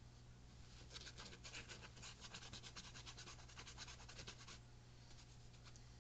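Faint, quick scratching of a paintbrush being worked in fast strokes for about three and a half seconds, then a few scattered light ticks.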